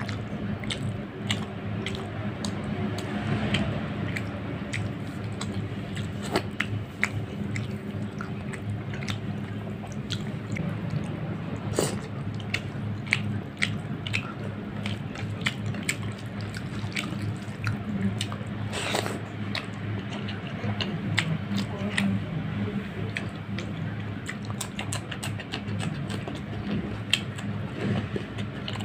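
Close-up eating sounds of fish curry and rice eaten by hand: wet chewing, lip smacking and squishing of gravy-soaked rice, with many small clicks throughout, over a steady low hum.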